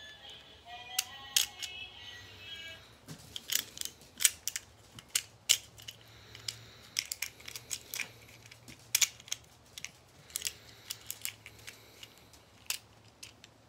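Small plastic Transformers figure being handled and transformed by hand: irregular sharp clicks and snaps of plastic parts, with a few brief squeaks in the first few seconds.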